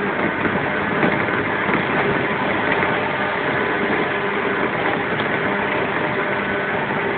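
Interior running noise of a JR 115-series resistance-controlled electric multiple unit, heard from inside the motor car: a steady rumble of wheels on the rails with a faint steady hum from the running gear, holding an even level as the train travels along.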